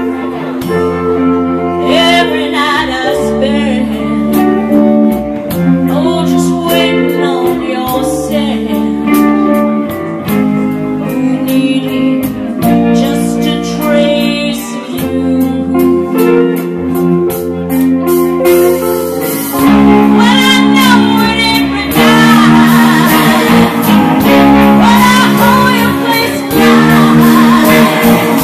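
A live band plays a soul-blues song, a woman singing lead over electric guitar, bass, keys and drums. About two-thirds of the way through, the band gets louder and fuller.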